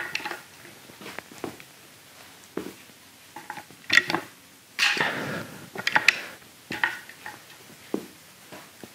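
A pair of dumbbells clinking and knocking as they are handled, set down on and picked up off the gym floor mat, with rustling movement in between. The sharpest clacks come about four and six seconds in.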